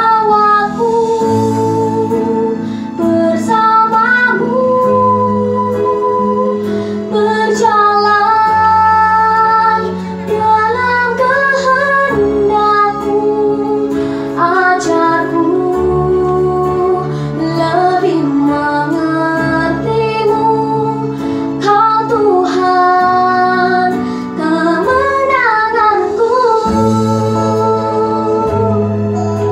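A young girl singing a Christian worship song in Indonesian into a microphone, over an instrumental backing of held chords.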